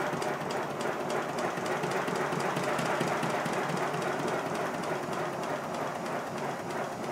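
Model steam locomotive (Metre Maid) running on compressed air with its wheels turning freely in forward gear: the cylinders' rapid, even exhaust beats over a steady hiss of escaping air, starting suddenly as the air is turned on. This is the test of the repaired valve gear and new connecting rod bushes.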